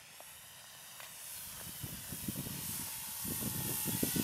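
Brushless electric motor and propeller of a large RC Cub model plane, a hissing whine that grows steadily louder as the plane comes in low toward the listener.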